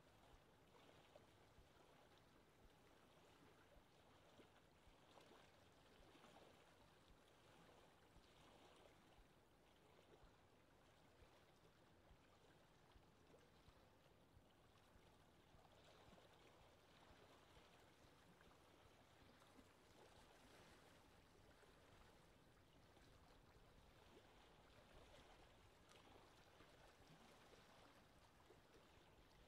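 Very faint, steady ambience of gently lapping lake water with a light wind.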